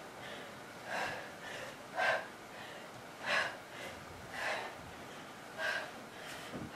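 A woman breathing hard from exertion during rolling V-ups: sharp, noisy breaths about once a second, in time with the reps.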